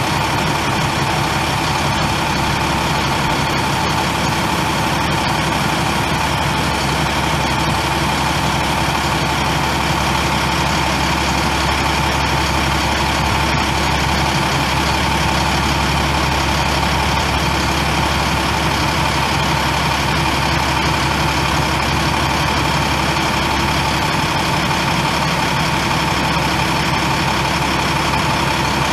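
International MaxxForce 10 9.3-litre inline-six turbo diesel of a bucket truck running steadily with no change in speed.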